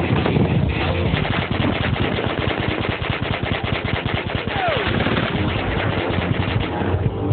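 A fast, continuous rattle of machine-gun fire, a sound effect laid into the mix, with a short falling whistle about four and a half seconds in.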